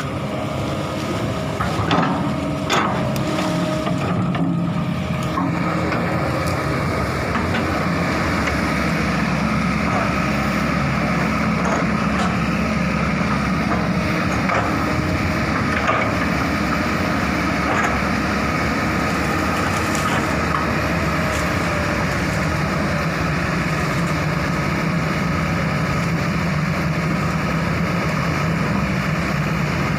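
Excavator's diesel engine running steadily, with a couple of sharp knocks about two to three seconds in.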